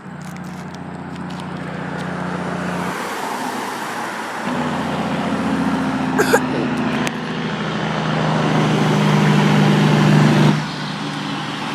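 Road traffic with a heavy truck's engine and tyres growing steadily louder as it approaches, then dropping off about ten and a half seconds in as it goes by. No horn sounds.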